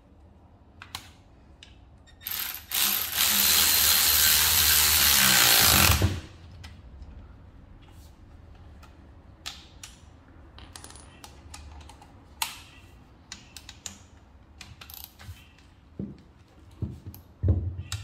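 Cordless power tool running for about three and a half seconds, driving bolts on an automotive AC compressor's mounting bracket, with a short burst just before. Afterwards come small clicks and knocks of sockets and metal parts being handled, and a couple of dull thuds near the end.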